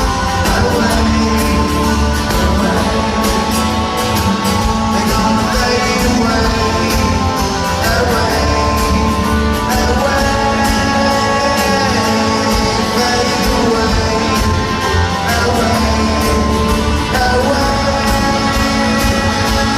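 Live rock band playing an instrumental passage of the song with electric guitars and drums, loud and steady, as heard in a large arena.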